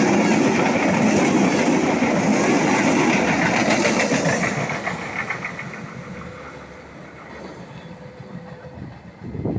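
A train passing close by, its wheels clattering rhythmically over the rail joints, then fading away over a couple of seconds as the last cars go by.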